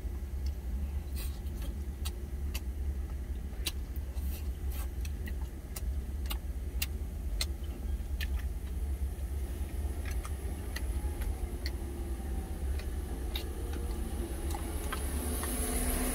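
A truck's engine idling with a steady low rumble, while chopsticks click and tap against metal and plastic lunch containers many times at irregular intervals.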